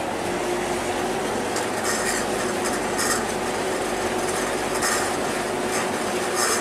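Harbour ferry under way: its engine runs with a steady hum under a constant rush of wind and water noise, and a few short rattles come through now and then.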